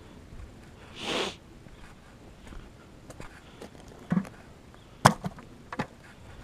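A brief rustling swish about a second in, then a dull thump and a few sharp knocks and clacks of fishing gear being handled, the loudest a little past the middle.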